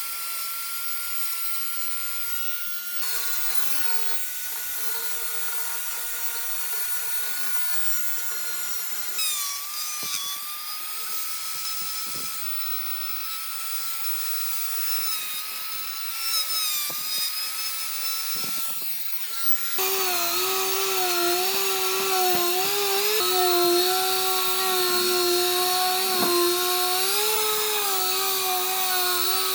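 Handheld electric power tool working wood, its motor whining steadily. The pitch shifts at a couple of points and wavers with the load; from about two-thirds of the way through it is louder and lower.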